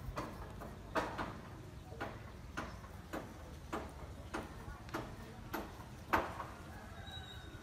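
A steady series of sharp knocks, about one every 0.6 seconds, the loudest about six seconds in.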